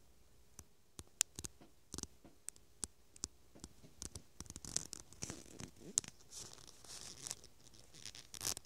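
Faint handling noise: scattered light clicks, then crinkling, rustling noise that thickens from about four seconds in.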